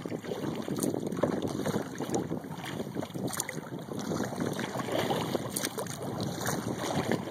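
Wind buffeting the microphone in a steady, crackly rush, with water lapping at a kayak.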